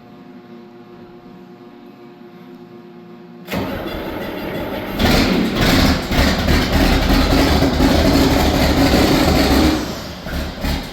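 John Deere 4640 tractor's diesel engine being started: after a faint steady hum, cranking begins about three and a half seconds in, then the engine catches and runs loudly before easing off near the end.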